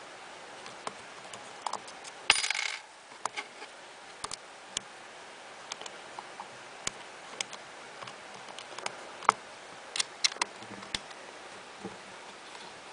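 Small metal clicks and taps, spaced irregularly, from an Allen key working the grip screws out of a Smart Parts Vibe paintball marker, with a brief metallic clatter about two seconds in.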